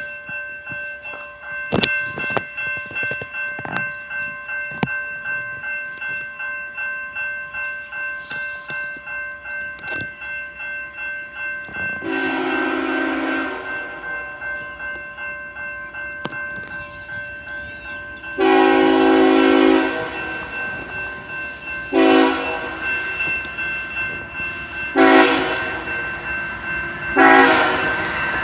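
Railroad crossing bell ringing about twice a second, then a CSX ET44AH locomotive's Nathan K5HL five-chime air horn sounding for the crossing: two long blasts, three shorter ones, and another long blast starting near the end.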